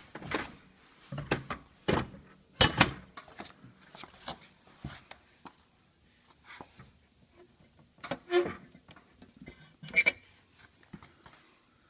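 Scattered, irregular clunks and knocks as a canvas stretching machine is fitted and slid onto its metal mounting brackets on a workbench.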